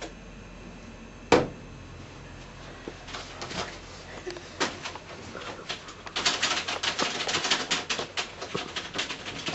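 A single sharp knock, then scattered clicks that build into a dense, rapid clatter of clicks and taps over the last few seconds.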